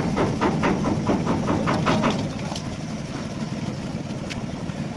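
A quick series of sharp knocks, about five a second, that stops a little over two seconds in, over the steady low running of an idling engine.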